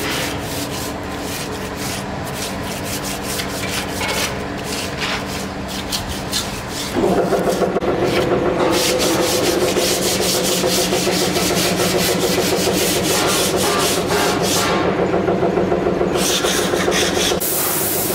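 Workshop machinery: rapid scraping or sanding strokes over a steady hum, then about seven seconds in a louder motor-driven machine starts and runs with a fast, fluttering drone.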